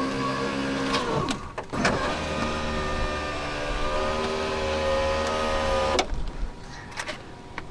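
Electric window motor and regulator in a Land Rover Discovery 2 passenger door, run as a test after its broken plastic wheel was tied back together with a tie wrap. The motor whines steadily, drops in pitch and stops briefly about a second in, then runs again for about four seconds and cuts off suddenly, followed by a few clicks.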